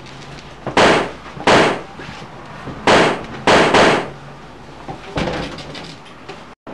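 Four loud bangs in two pairs, the two bangs of each pair under a second apart and the pairs about two seconds apart, followed by a few fainter knocks.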